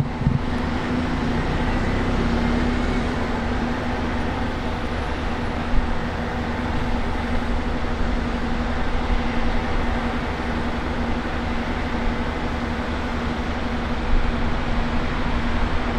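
A Class 150 Sprinter diesel multiple unit running slowly into a station. Its diesel engines give a steady rumble with one held low note.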